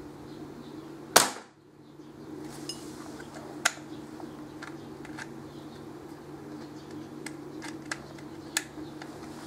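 A single sharp shot from a homemade pre-charged pneumatic airgun about a second in, followed by several much fainter clicks, over a steady low hum.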